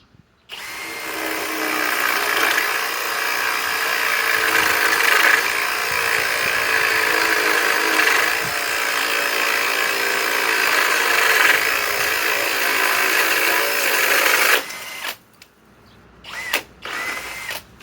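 Master Force Boost 20-volt cordless drill on speed 2 running under heavy load for about fourteen seconds as it bores a large bit all the way through, then stopping suddenly.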